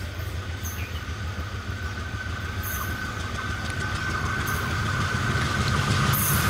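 ALCO diesel locomotive hauling a passenger train, coming closer and growing steadily louder: a low engine drone with a steady high whine above it.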